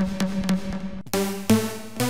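Electronic dance music playing back: a Sylenth1 software synthesizer sounding short, repeated pitched notes with sharp attacks, a fresh note striking about a second in and again near the end.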